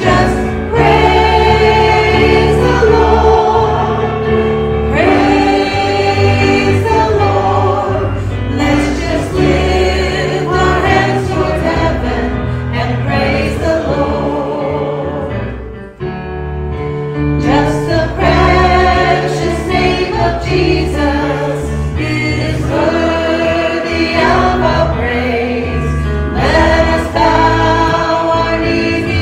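Small church worship group of female and male singers singing a gospel song together, with a bass guitar and instrumental accompaniment underneath. The music dips briefly about halfway through, then carries on.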